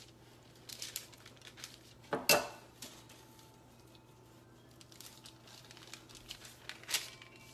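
Light clinks and scrapes of a kitchen utensil against a dish as filling is spread onto lasagna noodles, with a sharper knock about two seconds in and another near the end.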